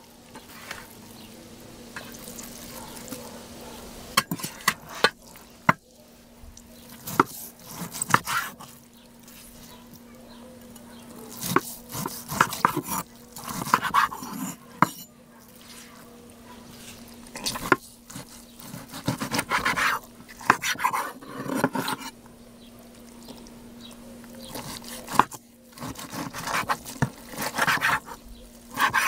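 Knife slicing through a cooked beef steak on a wooden cutting board: moist cutting and scraping strokes with sharp knocks as the blade meets the board.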